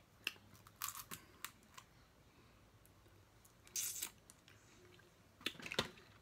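Snow crab leg shells cracking and snapping as they are broken open, in three bursts of sharp crackles: about a second in, around four seconds in, and near the end.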